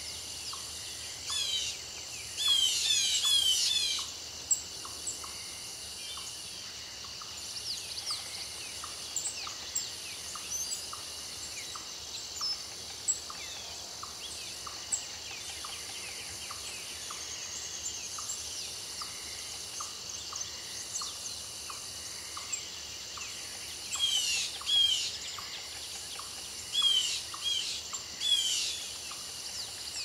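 A steady chorus of crickets with a higher trill that pulses on and off every second or so. A bird calls in quick runs of falling chirps about two seconds in, and again several times in the last six seconds.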